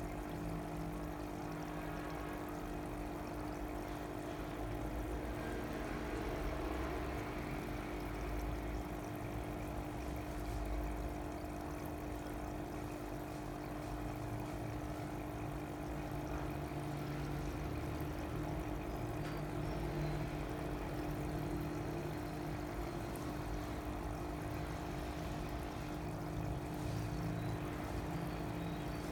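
Water pouring and trickling steadily, with a constant hum underneath.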